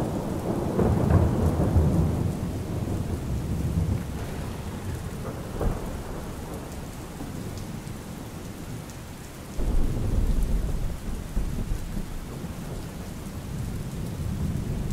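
Steady rain with rolls of thunder. One rumble opens and dies away over a few seconds, and another breaks in suddenly about ten seconds in.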